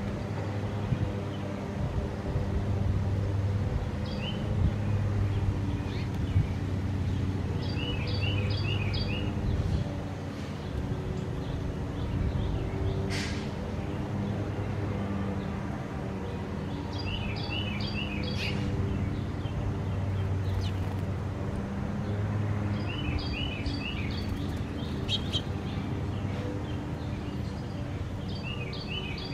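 Small songbird chirping in short quick runs of four or five notes, repeated every few seconds, over a steady low hum.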